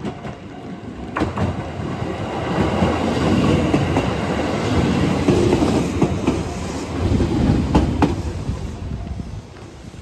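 A JR Iida Line train passing close by, its rumble swelling up and then fading away, with sharp clicks of the wheels over the rail joints.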